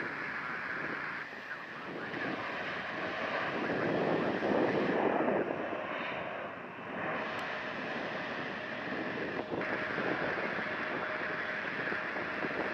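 Jet airliner engines running close by, a steady rushing noise, with gusting wind buffeting the microphone in the rain.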